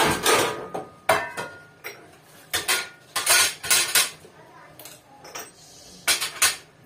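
Metal pot lids, trays and utensils clattering on a kitchen counter: a string of irregular sharp clanks and knocks, loudest right at the start.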